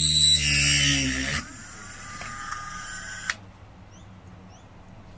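Dremel rotary tool on low speed with a 1/8-inch drill bit, drilling out an old rivet in a Bakelite plate: a steady motor whine that cuts off about a second and a half in. A single sharp click follows near the middle.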